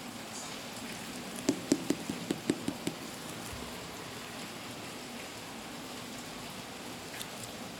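Handling noise as the sneakers are moved and set down: a quick run of about seven light knocks, over steady background hiss, with one faint click near the end.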